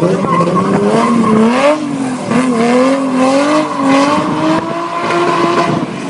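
BMW E21's engine revving hard, its pitch wavering up and down and climbing gradually for about five seconds, then falling away near the end.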